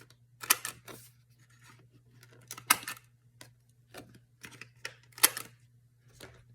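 Paper corners being cut round: about six short, sharp cuts, the loudest a little past the middle, over a steady low hum.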